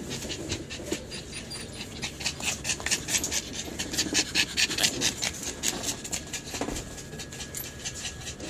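A small dog panting rapidly, in quick short breaths.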